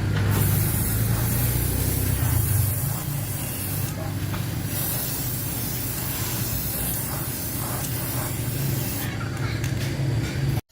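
A steady spraying hiss in two long stretches, broken briefly about four seconds in, over a low machine hum.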